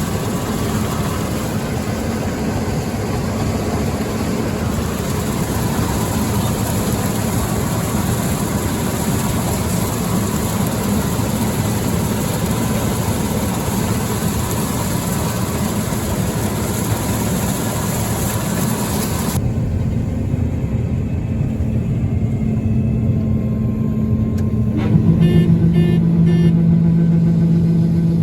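Farm machinery engine running with dense rushing noise. About nineteen seconds in, the sound cuts abruptly to a quieter engine hum, and near twenty-five seconds a strong steady drone comes in as the engine picks up load.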